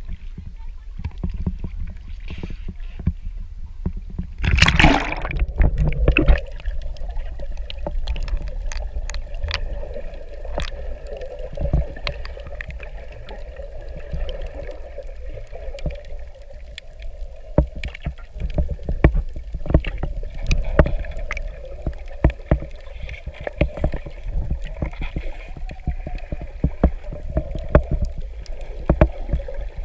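Camera in a waterproof housing plunging from the sea surface under water with a splash about four to five seconds in; after that, muffled underwater sound with a steady hum and many scattered sharp clicks.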